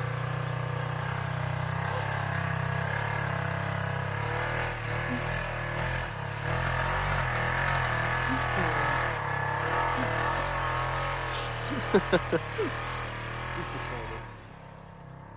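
Polaris side-by-side UTV engine running steadily under load as it climbs a steep grassy slope. A few short, sharp sounds come about twelve seconds in, and the engine grows quieter near the end.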